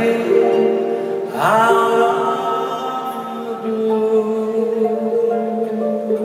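Male singer with symphony orchestra performing live, heard from the arena audience: held notes over sustained orchestral chords, with a rising sweep about a second and a half in.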